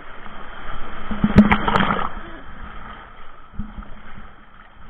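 Shallow surf washing over and around a GoPro at the water's edge: the rush of water swells over the first two seconds, with two sharp knocks near the peak, then ebbs away.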